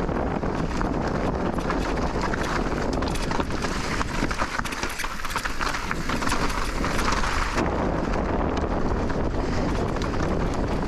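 Wind buffeting the microphone while a Specialized Turbo Levo electric mountain bike rolls over a rocky trail, its tyres crunching and the bike rattling with many sharp clicks. About halfway through the low rumble eases and the crackling gets sharper for a few seconds.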